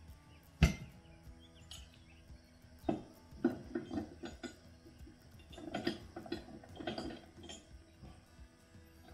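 Steel hitch hardware on the back of an ATV clinking and clanking as it is handled: one sharp clank about half a second in, then clusters of lighter metal clinks around the third and sixth seconds.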